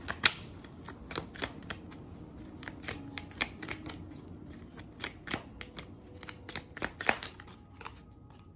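Tarot deck being shuffled by hand, giving a run of irregular card clicks and taps, several a second; the sharpest come just after the start and about seven seconds in.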